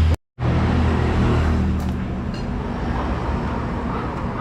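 Suzuki SV650's 645 cc V-twin idling through its stock muffler with a steady low exhaust note. The sound drops out completely for a moment just after the start, then settles slightly quieter about two seconds in.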